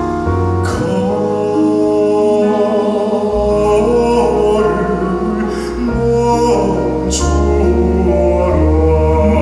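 Live music: a male vocal group singing with band accompaniment, held sustained notes over a bass line. Two sharp crashes come shortly after the start and about seven seconds in.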